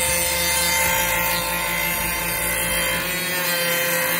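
Snapmaker 2.0 A350 CNC module's spindle running at about 12,000 RPM while its bit mills the MDF spoil board flat: a steady whine with the rasp of cutting wood.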